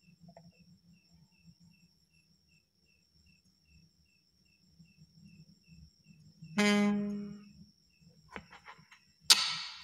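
A low buzzing tone with many overtones comes through the microphone and sound-card chain for about a second, about two-thirds in. A sharp thump from the handheld lavalier microphone comes near the end. Faint regular high chirps, about three a second, run underneath.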